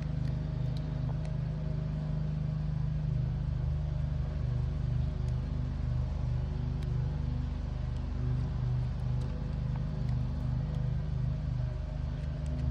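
A steady low machine drone like an idling engine, with a slow even pulse and a few faint small clicks over it.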